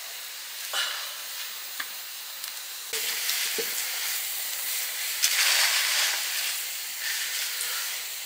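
Chicken curry sizzling and frying in a hot pan, with a few sharp clicks of a utensil. The sizzle grows louder about three seconds in and is loudest around five to six seconds.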